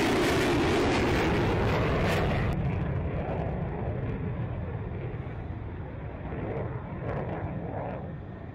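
Jet engine roar of an F-35 fighter flying past overhead. The roar drops abruptly about two and a half seconds in. What is left is a lower rumble that swells briefly twice and fades as the jet moves away.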